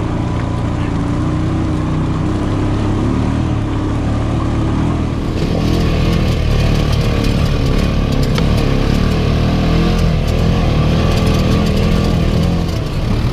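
Side-by-side UTV engine running with a wavering pitch as the throttle changes while the machine crawls down a rocky trail. About five seconds in the sound gets louder, with frequent clicks and knocks over the engine.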